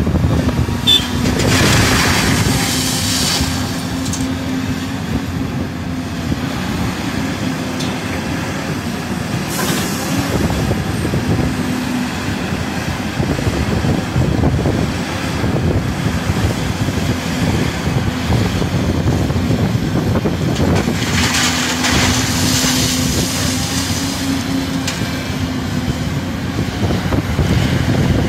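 Volvo EC350DL excavator's diesel engine and hydraulics running steadily under load with a constant hum while it digs and loads crusher-run stone into a dump truck. Two longer rushing surges stand out, one about two seconds in and one about three-quarters of the way through, as stone pours from the bucket into the truck's bed.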